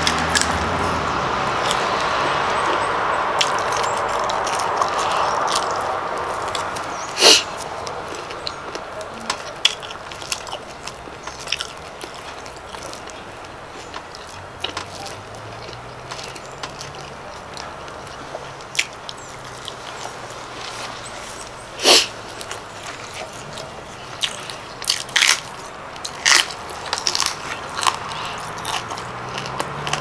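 Chewing and crunching while eating raw green vegetables and sticky rice with spicy raw beef salad, with irregular sharp crunches and mouth clicks, a few much louder than the rest.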